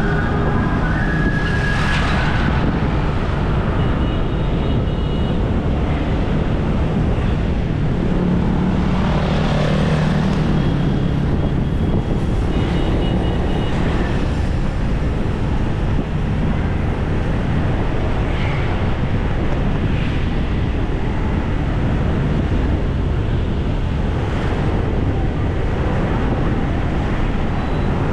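Road traffic heard with wind on the microphone: a steady rush of engine and road noise, with vehicles swelling past a couple of times.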